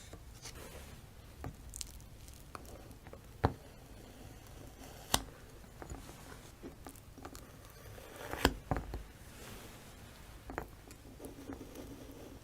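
Slime being squished and pressed by hand, making scattered sticky clicks and small pops, with three sharper pops spread through.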